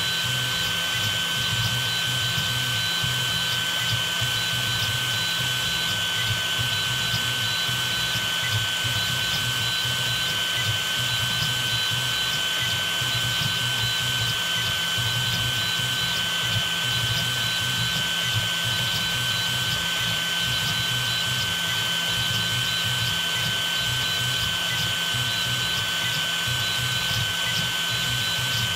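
Desktop FDM 3D printer running while it prints: a steady high-pitched electronic whine in two tones, held constant, over an uneven low hum from its fans and motors.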